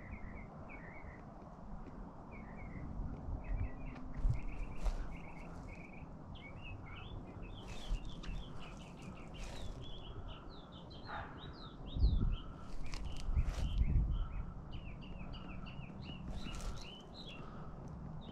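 Small birds chirping over and over in quick, short notes, with a few brief rustling bursts and several low thumps about two-thirds of the way through.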